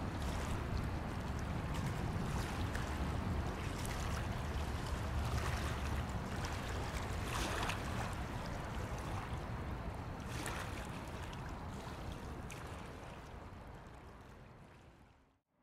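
Steady roar of a Boeing 747 freighter's four jet engines passing low on its landing approach, mixed with wind gusting on the microphone. The sound fades away in the last few seconds.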